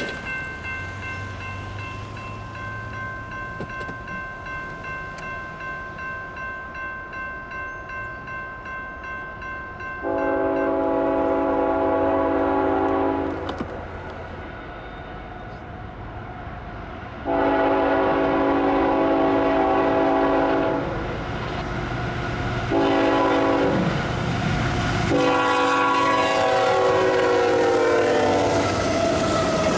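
A grade-crossing warning bell rings in steady pulses, about two a second. Then a CSX freight locomotive's air horn sounds the standard crossing signal: two long blasts, one short and one long. The final blast falls in pitch near the end as the locomotive passes, with the train's rumble rising beneath it.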